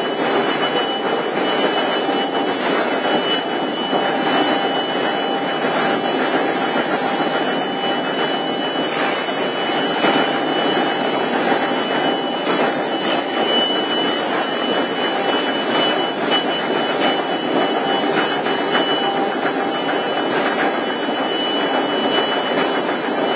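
Pad production-line machinery and conveyor running continuously: a steady, dense mechanical whirring and clatter with a thin high whine held through it.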